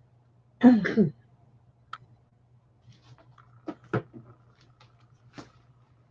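A brief vocal sound, a short word or cough, about half a second in, then a few light taps and clicks of bagged comic books being handled and set down, over a faint steady low hum.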